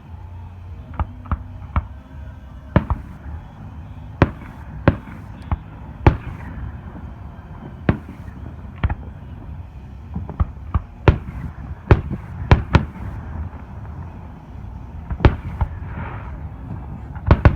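Fireworks going off: a string of sharp bangs at irregular intervals, some in quick pairs, over a steady low rumble.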